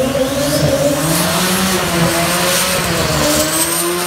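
Sport-compact drag car doing a burnout: the engine is held at high revs, wavering up and down, over the noise of the spinning, smoking rear tyres.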